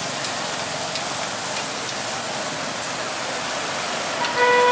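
Steady sizzling hiss with small crackles, typical of beef skewers grilling over a charcoal fire. Near the end a vehicle horn starts sounding, one steady note.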